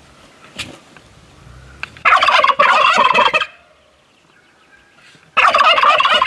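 Turkey tom gobbling twice while strutting in display. Each gobble is a loud, rapid rattling call, the first lasting about a second and a half, the second starting about five seconds in.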